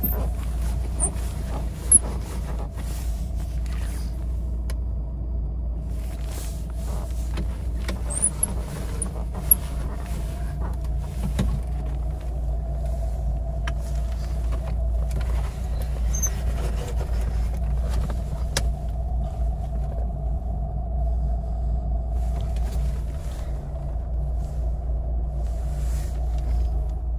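Lada Niva 1.7i's four-cylinder petrol engine running steadily, heard as a low drone from inside the cabin, with a few sharp clicks from the interior.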